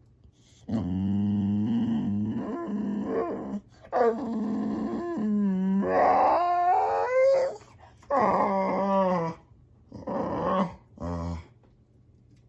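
Boxer dog vocalising in long, drawn-out whining moans that slide up and down in pitch, in about six stretches with short pauses, the later ones shorter.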